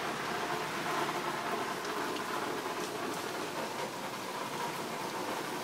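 Steady rain falling on leafy trees: an even, continuous hiss.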